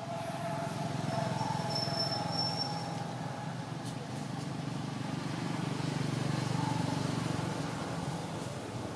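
A steady low engine hum, like motor traffic, growing louder about a second in and again around six to seven seconds.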